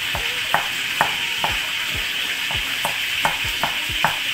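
Cleaver chopping garlic cloves on a thick round wooden chopping block: about ten knocks, two or three a second. Underneath, a steady hiss of rain.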